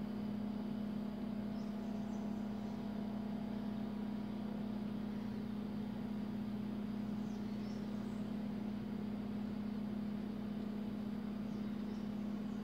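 A steady low hum, even and unchanging throughout.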